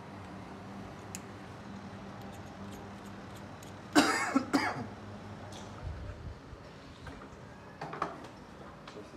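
A person coughs twice in quick succession about four seconds in, over steady background noise.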